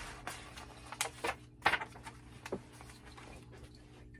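A few short, sharp clicks and taps from a paper picture book being handled as its page is turned and the book is turned round, bunched in the first couple of seconds.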